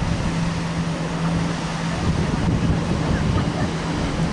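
Wind buffeting the microphone over a steady low hum.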